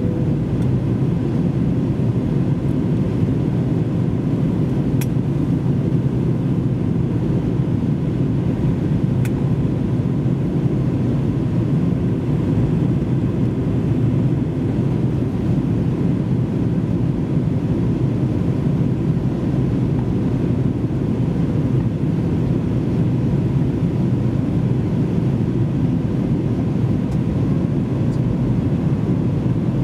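Steady cabin noise of an Airbus A321-200 in flight on approach: the even low rush of airflow and jet engines heard from a window seat, with a faint steady tone above it. Two faint ticks sound about four seconds apart, near the start.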